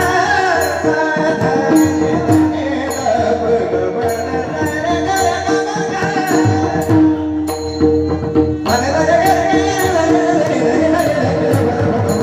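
Marathi Warkari kirtan chal: male voices singing over a steady held drone, with a pakhawaj drum and regular strokes of small hand cymbals keeping time. The singing drops out briefly a little past halfway and comes back in sharply.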